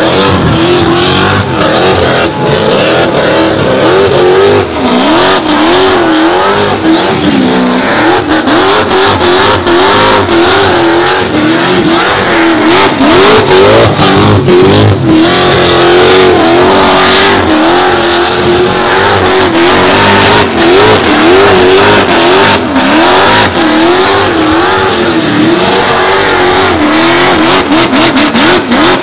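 Supercharged burnout car's engine held at high revs, its pitch wavering up and down as the throttle is worked, over the hiss and squeal of rear tyres spinning on the pavement in a smoky burnout.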